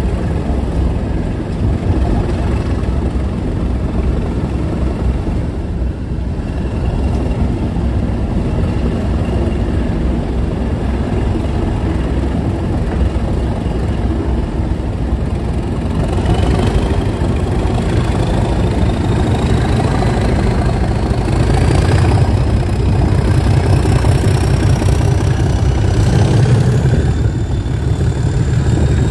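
British Rail Class 37 diesel locomotive's English Electric V12 engine working under power, heard close from the coach behind. From about halfway through a high whistle climbs steadily in pitch and the engine note grows heavier as the locomotive opens up.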